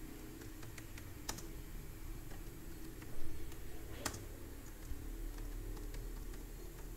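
Typing on a computer keyboard: irregular, fairly quiet keystroke clicks, with one louder knock about three seconds in.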